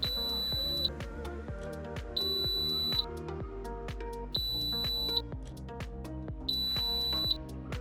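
Water fountain's alarm beeping: four long, high beeps, each just under a second, about two seconds apart, over background music.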